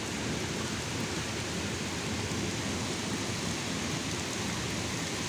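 Heavy rain pouring down in a steady hiss, with a continuous low rumble underneath from a thunderstorm, which the listener hears as an unbroken drone like a low-flying plane.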